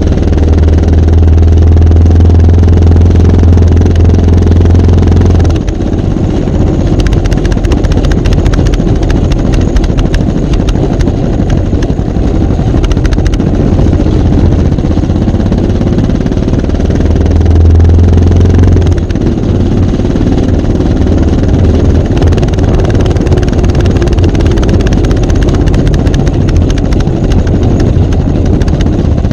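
Motorcycle engine running through a Yoshimura Trioval exhaust. A strong low drone drops away about five and a half seconds in and comes back briefly near eighteen seconds, while the engine runs on steadily.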